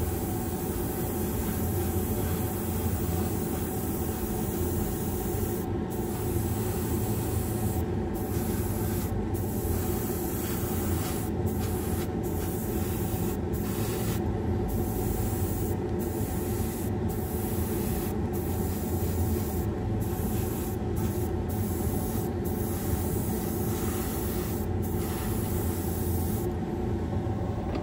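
Airbrush hissing as it sprays paint, its air cut off briefly again and again as the trigger is let go between passes, over the steady hum of a spray booth's extraction fan.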